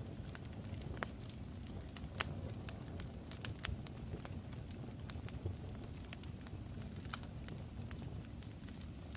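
Crackling fire: a steady low rumble with irregular sharp pops and snaps. A faint thin high tone comes in about halfway and slides slightly lower.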